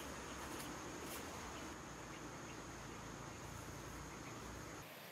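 Faint outdoor ambience: insects making a steady high-pitched drone over a low rumble, cutting off abruptly near the end.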